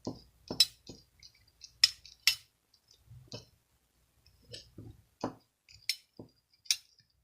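A run of sharp clicks and light clinks of small hard objects, about a dozen in all at uneven intervals, some with a brief crackle.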